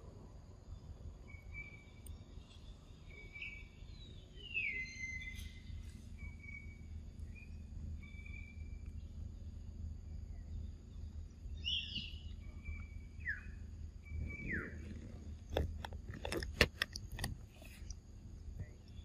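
Forest birds calling: repeated short chirps and a few falling whistles over a low, steady background noise. Near the end comes a quick run of sharp clicks and taps, the loudest sounds.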